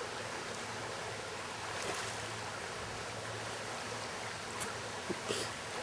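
Steady rush of flowing river water, with a few faint clicks near the end.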